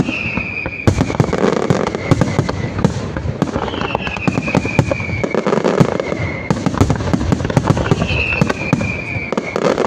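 Fireworks finale barrage: dense, rapid bangs and crackling shell bursts with no pause, and three long falling whistles over it.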